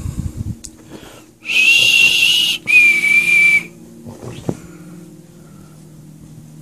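Dog's squeaky toy squeezed twice: two long, high-pitched squeaks of about a second each, the second a little lower, after a few soft thumps at the start.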